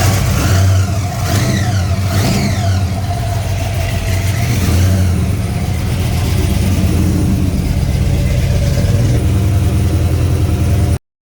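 Blown V8 with an 8-71 Roots supercharger running after being started: a few throttle blips in the first seconds with the revs falling back, then a steady idle, cut off suddenly near the end. It is running again now that fuel is reaching it.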